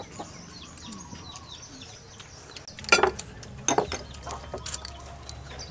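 Chickens chirping and clucking in the background, a run of short, high, falling chirps in the first half. About three seconds in come two louder, short, noisy eating sounds as noodles are slurped from a bowl.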